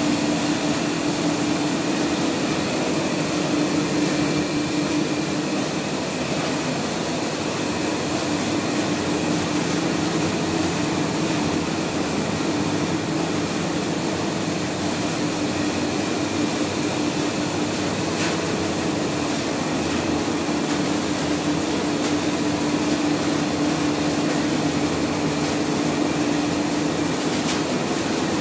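1987 Gazelle 6 IMR reel-fed printing press running, a steady mechanical hum with a constant low drone as the paper web runs through its rollers.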